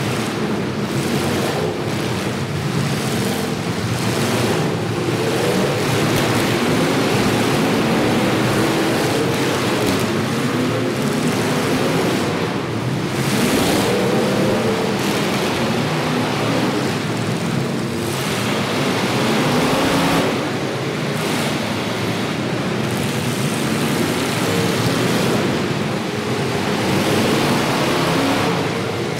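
Several demolition derby cars' engines running and revving at once, a dense, continuous wash of engine noise with engine notes rising and falling.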